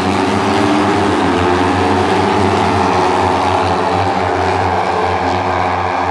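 Several small J-GP3 class racing motorcycles running hard past the track, their engine notes overlapping into a loud, steady whine.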